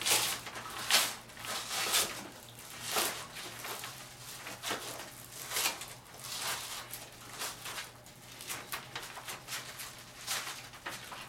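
Irregular rustling and crackling, a few sharp clicks a second, as gloved hands handle a steel split-set friction bolt crusted with cured polyurethane foam on kraft paper. A faint steady low hum lies underneath.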